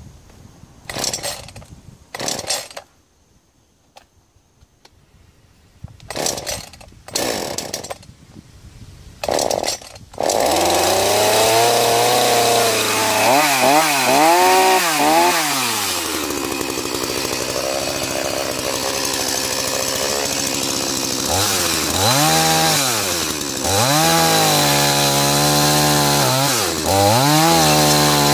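Small two-stroke chainsaw: several short bursts of sound, then the engine catches about ten seconds in and runs loudly, revving up and down repeatedly as it cuts into a tree stump.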